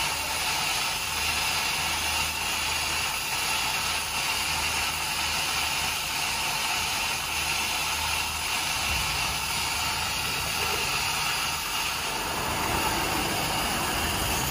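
Large steel pot of shirasu (whitebait) at a rolling boil: a steady hissing, bubbling rush.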